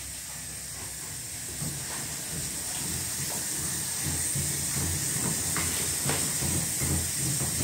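Steady high-pitched hiss of escaping steam that grows louder, with soft irregular low knocks underneath.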